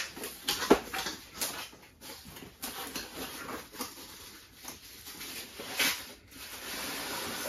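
A small cardboard box being opened by hand. A few sharp snaps and clicks as the flaps are pulled, then cardboard rustling and scraping as it is worked apart.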